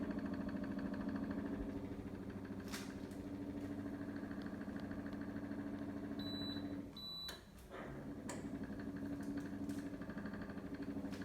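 Indoor unit of a Gorenje split-system air conditioner running at low power with a steady hum and a fast rattling and knocking: a foreign noise from the unit that marks a fault. The sound dips briefly about two-thirds of the way through.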